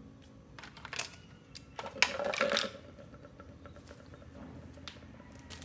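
Hard plastic parts of a toy gel blaster being handled and set down on a tile floor: a click about a second in, then a louder clatter of knocks around two seconds in, with a few small clicks after.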